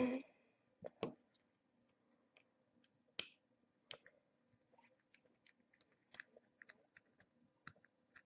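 Faint, scattered clicks and light taps from handling a plastic figurine and its cardboard packaging, with a small cluster of them a little past the middle.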